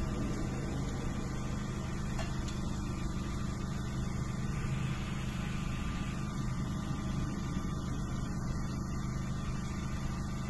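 A steady low hum with several even tones in it, holding level throughout, with no bangs or other distinct events.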